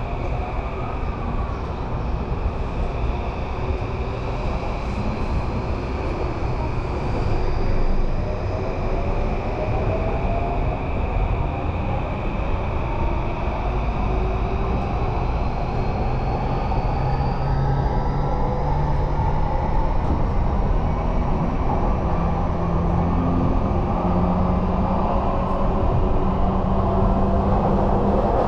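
Yamanote Line electric commuter train heard from inside the car as it pulls away and gathers speed: the motor whine climbs slowly in pitch over a steady rumble of wheels on track.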